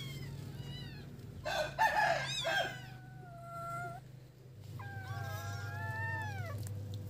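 Kittens mewing, mixed with a rooster crowing: the loudest call, about a second and a half in, is long and wavering with a held tail, and a second long call follows about a second later.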